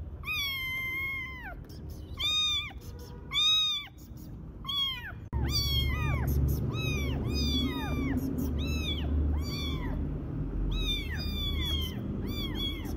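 A cat meowing over and over in high-pitched calls. One long meow comes first, then a few spaced meows, then from about five seconds in a quick run of short meows, about two a second, over a low rumble.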